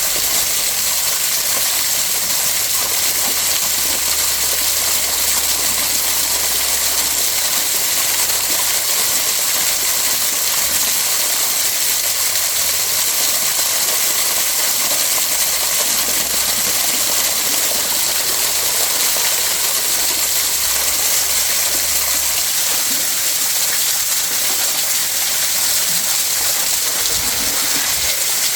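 Waterfall: a steady, even rush of falling water that runs without a break.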